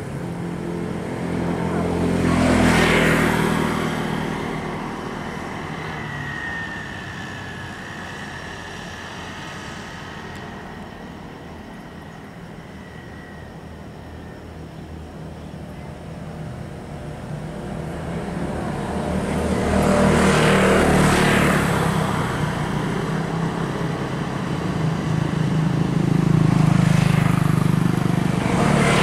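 Motor vehicles passing close by one after another: three pass-bys, near the start, about two-thirds of the way in and near the end, each swelling and fading over a few seconds, with a low engine hum under the rush of noise.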